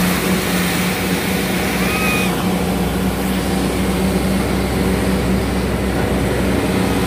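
Hydraulic excavator's diesel engine running steadily under load as the loaded bucket swings round and tips soil into a dump truck bed. A brief high squeal comes about two seconds in.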